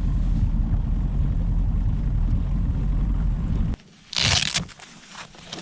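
A bass boat's outboard motor running with a steady low rumble. It cuts off abruptly after about three and a half seconds, and a brief loud rushing hiss follows.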